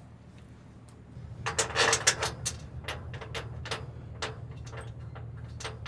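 Metal combine parts being handled and refitted: a burst of metallic rattling about a second and a half in, one sharp clank, then light clicks and knocks about twice a second over a steady low hum.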